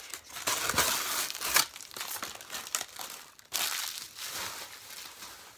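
Packaging wrapped around a styrofoam box crinkling and tearing as it is pulled open by hand, in irregular bursts with short pauses.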